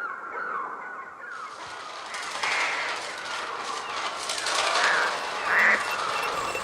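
A flock of birds squawking and cawing, a string of harsh cries over a dense noisy background, the loudest cry about five and a half seconds in.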